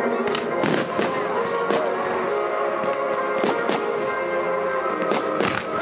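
Aerial firework shells bursting: a string of sharp bangs every second or so, over music that plays on steadily.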